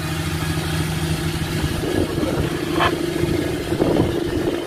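Fishing trawler's diesel engine running steadily under the load of a towed trawl net, heard inside the wheelhouse. Its steady tone shifts higher about two seconds in, and a brief high chirp comes near the three-second mark.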